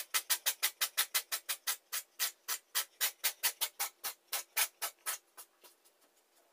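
A cat making rapid, rhythmic breathy huffs, like a steam locomotive chuffing. The puffs come about six a second at first, slow to about three a second, and fade out near the end.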